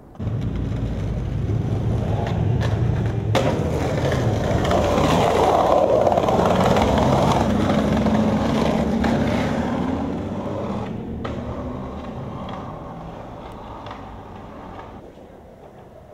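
Skateboard wheels rolling over a concrete sidewalk, growing louder to a peak about halfway through and then fading away, with a few sharp clicks along the way.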